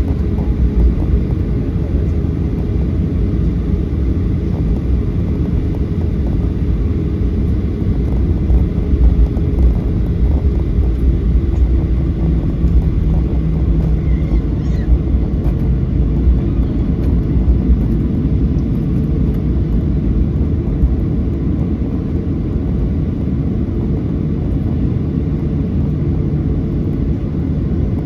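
Steady low rumble inside the cabin of a Boeing 737-800 from its CFM56-7B engines and the airflow around the fuselage.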